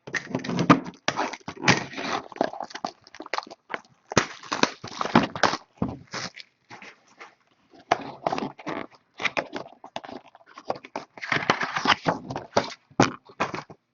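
Trading cards and their packaging being handled: irregular rustling and crinkling, broken by sharp light clicks and snaps.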